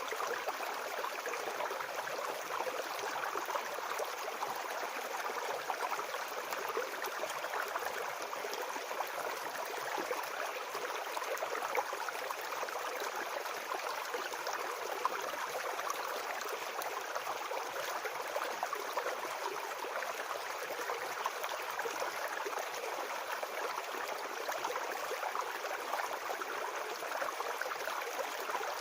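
Small forest brook babbling and gurgling over stones, a steady, even rush of water.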